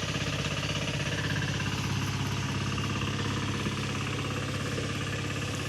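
An engine running steadily nearby, with an even low pulse that does not change.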